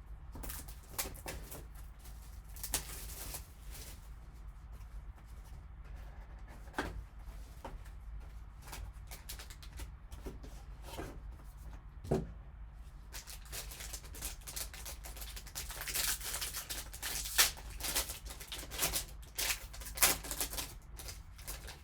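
A trading-card box and its wrapped pack being opened by hand: scattered taps and rustles of cardboard and cards, turning into denser crinkling and tearing of the wrapper about two-thirds of the way through. A steady low hum lies underneath.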